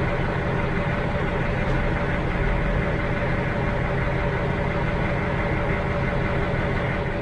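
An engine idling steadily: a low, even running sound with a few steady tones riding above it.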